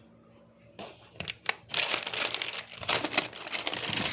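Plastic packaging crinkling and rustling in irregular bursts as goods are handled and pulled out of a box, starting about a second in and growing louder.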